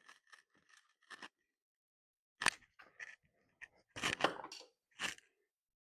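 Short clicks and scrapes of small parts being handled as a circuit board and its connectors are taken out of an opened DAB radio: a few faint ticks at first, then louder sharp clicks about two and a half seconds in and a cluster around four seconds.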